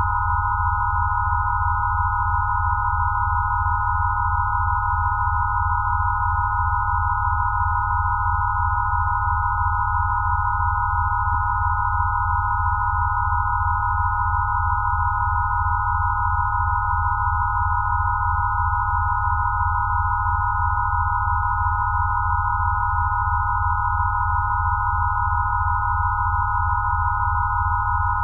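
Synthesized 'rife' healing-frequency tones: several steady pure tones in the upper midrange held without change over a low hum that throbs in a rapid, regular pattern.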